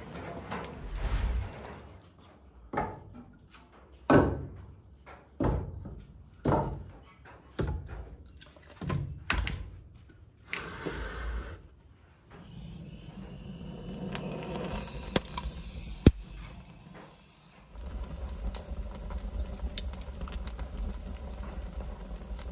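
Heavy wooden thunks, about one a second, as split firewood logs are set down on the brick floor of a wood-fired oven. Near the end, a wood fire burning with a steady low rumble and small crackles.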